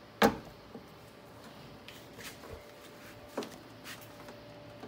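A sharp knock just after the start, then scattered faint clicks and a second, softer knock about three seconds later: hand work with a screwdriver, fitting screws through a vinyl door panel.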